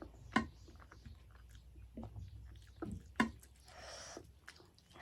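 Chewing and mouth sounds of someone eating rice with buffalo-meat gravy, with scattered small clicks and two sharper clicks, one about half a second in and one about three seconds in.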